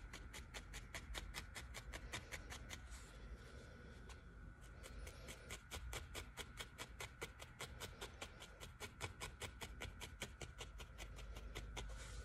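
Barbed felting needle stabbing repeatedly into wool, about four to five soft pokes a second, with a brief let-up three to four seconds in.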